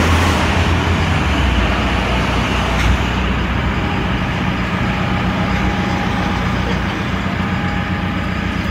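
Road traffic noise: the low rumble of a vehicle engine running close by, with a steady hum, loudest in the first three seconds and then easing off.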